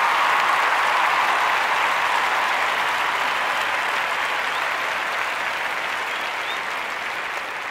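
Crowd applauding, a dense steady clapping that slowly fades away.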